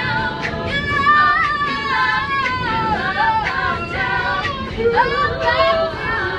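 A cappella vocal group singing, several voices together in harmony with sliding, held notes, with sharp percussive ticks keeping a beat.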